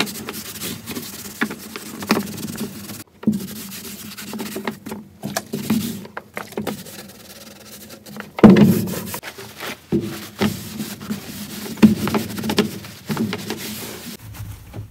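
Scrubbing the dirty lid of a sewing machine case with TSP solution: irregular rubbing and scraping strokes with occasional knocks, the loudest about eight and a half seconds in.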